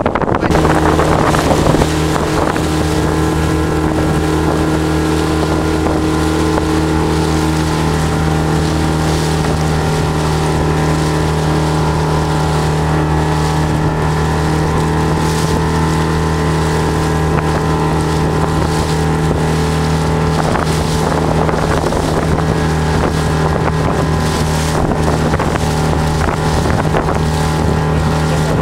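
Outboard motor of a panga, an inflatable dinghy, running at a steady pitch, heard from aboard. The hum comes in about half a second in and holds unchanged, with wind and water hissing over it.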